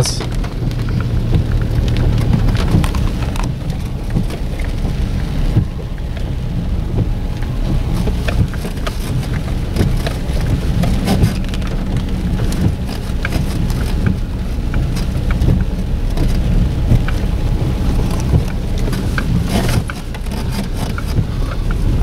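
Rain pattering on a car's roof and windscreen, heard from inside the cabin, over the steady low rumble of the car driving on a dirt track.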